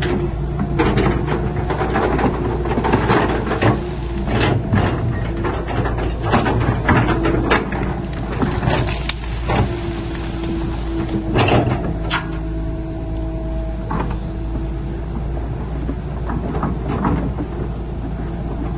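Excavator engine running steadily, with frequent sharp clanks and knocks that thin out after about twelve seconds. A steady whine sounds over the engine from about ten to fifteen seconds in.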